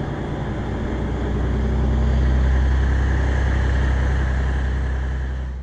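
Single-car diesel railcar running past with a steady low engine drone and rail and running noise. It swells slightly midway, then fades out at the end.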